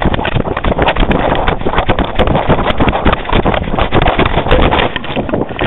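Wind buffeting the microphone of a dog's collar-mounted camera, with the camera knocking and rubbing against the dog as he runs fast through snow: a loud, continuous rush full of rapid knocks.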